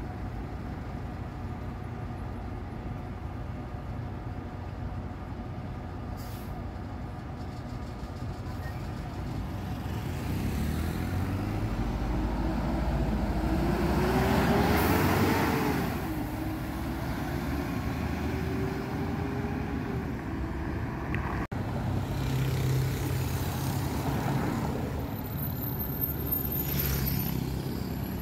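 Diesel city bus engine idling, then pulling away from the stop: the engine note rises as it accelerates past, loudest about halfway, drops at a gear change and climbs again. In the last few seconds another bus's engine drones as it comes up to the stop.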